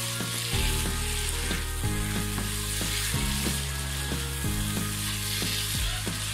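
Dried mola fish, onions and green chilies sizzling in a spiced masala in a non-stick wok, stirred and turned with a spatula.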